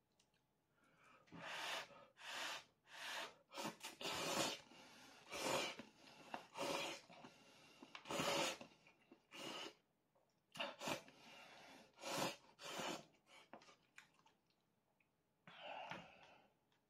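A person slurping instant ramen noodles off chopsticks: a run of short, airy sucks, over a dozen in quick succession, then a pause and one more slurp near the end.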